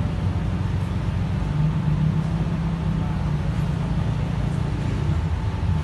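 Steady low rumble with a faint hum, no voice over it.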